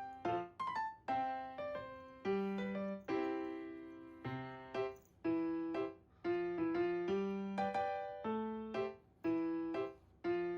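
Background music: solo piano playing a light melody with chords.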